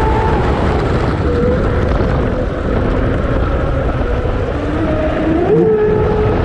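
Pro Boat Zelos 48 RC catamaran's 10S brushless motor whining over loud rushing water, heard from on board. The whine is steady at full throttle, drops off about half a second in as the boat slows into a turn, then rises again about five seconds in as it accelerates.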